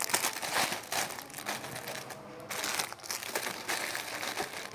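Packaging crinkling and crackling in rapid irregular bursts as it is handled, fading toward the end.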